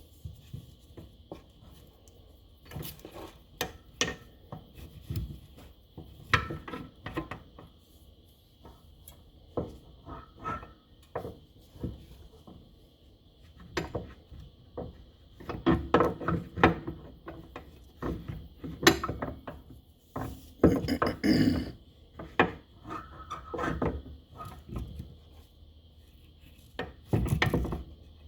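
Metal motorcycle fork parts and hand tools handled on a workbench: irregular clinks, knocks and scraping rubs, with denser clatter about sixteen and twenty-one seconds in.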